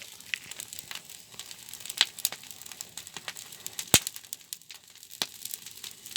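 Campfire crackling and popping, with irregular sharp pops over a faint hiss; the two loudest come about two and four seconds in.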